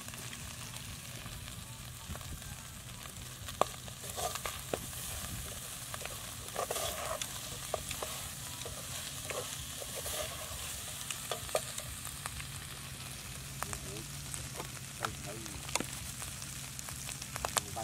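Eel cooking in a black pot over a wood fire, sizzling steadily, with scattered clicks and scrapes of a spoon stirring against the pot.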